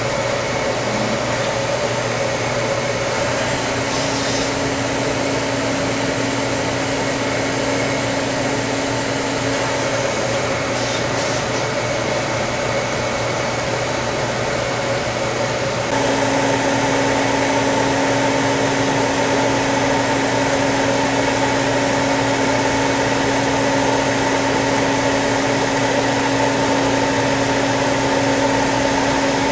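Citizen M20 Type III CNC Swiss-type lathe running: a steady mechanical hum and whine with a few constant tones over a hiss. There are two brief high hisses in the first half. About halfway through the sound steps abruptly louder and a steady tone returns.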